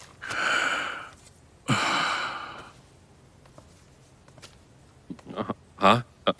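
A person sighs twice, two long breathy exhalations of about a second each, one after the other. Near the end come a few short voiced sounds.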